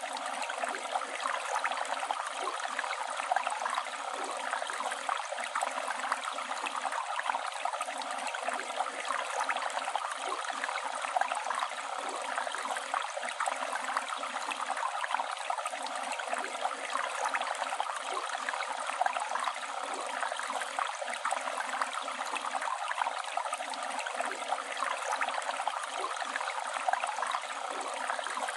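Flowing river water, a steady rush with small gurgles and splashes that does not change.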